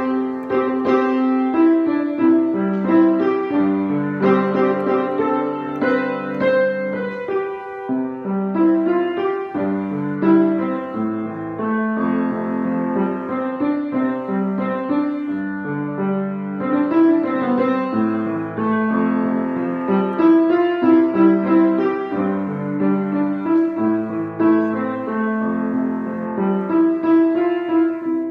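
Piano playing a continuous piece of chords and melody without pause.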